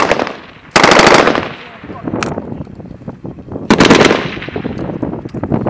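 Automatic gunfire: two short bursts of rapid shots, about a second in and about four seconds in, each echoing away afterward, with a single shot between them.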